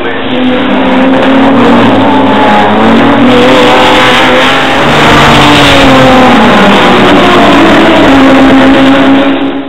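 Historic GT racing car engines at full race speed as several cars pass, revving hard, their pitch rising and falling as they go by. The sound cuts off suddenly at the very end.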